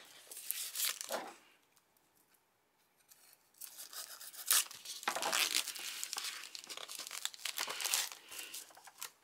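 Sheets of colored cardstock rustling and crinkling as one is pulled from a stack and handled. A brief rustle, a pause of about two seconds, then steady rustling with sharp crackles.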